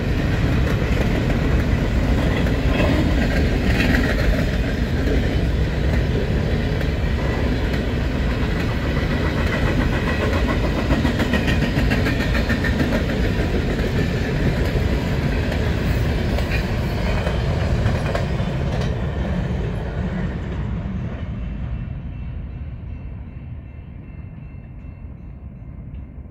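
Grain train's covered hopper cars rolling past close by, steel wheels running on the rails. The noise fades over the last several seconds as the end of the train passes and moves away.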